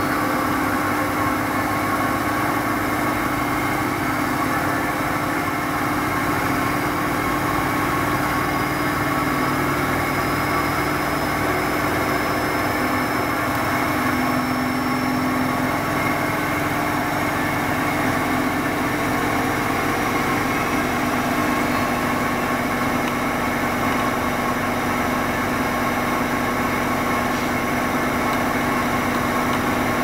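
Front-loading washing machine running with its drum turning: a steady motor hum with a few constant tones over a dense mechanical whir.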